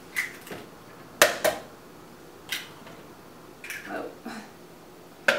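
Eggs being cracked into a blender jar: a series of short, sharp cracks and clicks of eggshell breaking, spaced irregularly, with quiet between them.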